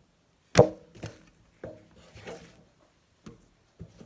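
Stainless steel bench scraper cutting through bread dough and knocking on a wooden cutting board: one sharp knock about half a second in, then several softer knocks and short scrapes.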